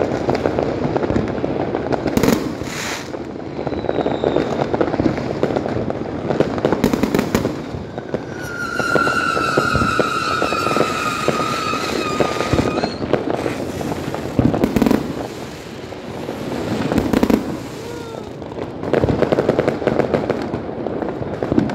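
A fireworks display with dense crackling and popping throughout and several sharp bangs. About eight seconds in, a long whistle falls slightly in pitch for some four seconds, from whistling rockets rising on wriggling spark trails.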